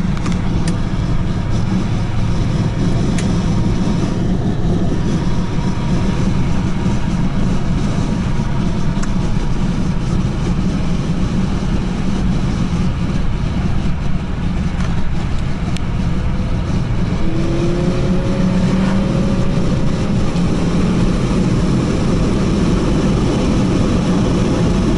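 Five-cylinder turbo car driving, heard from inside the cabin: steady engine and road noise, with the engine note rising for a few seconds about two-thirds of the way in.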